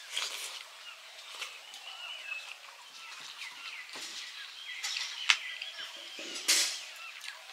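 Small birds chirping and twittering, with a few sharp clicks and smacks from eating by hand off steel plates; the loudest is a short noisy smack a little past six seconds.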